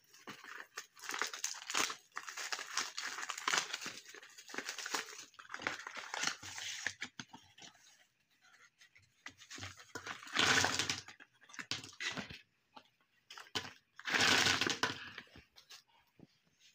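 Small paper-wrapped bubble gums and their cardboard boxes being handled: a steady crinkle and rustle of wrappers and box flaps, then two louder rushes about ten and fourteen seconds in as the gums are tipped out onto a plastic sheet.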